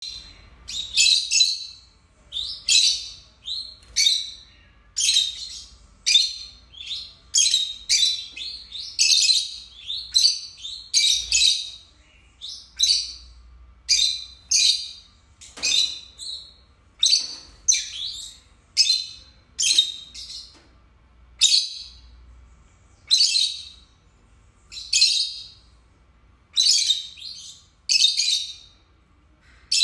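Pair of lutino peach-faced lovebirds calling: loud, shrill chirps repeated about one or two a second, often in quick pairs.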